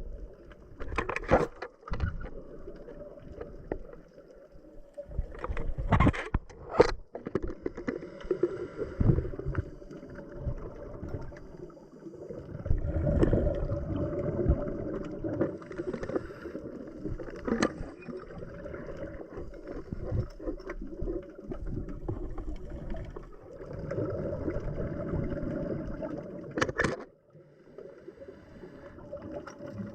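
Underwater sound of a scuba diver breathing through a regulator: exhaled bubbles rush out in long bursts of a few seconds, over a steady low hum, with a few sharp clicks and knocks.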